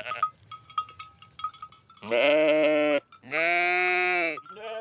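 Sheep bleating: two loud, drawn-out bleats of about a second each in the second half, and a third beginning near the end. Before them come faint clicks and brief high peeps.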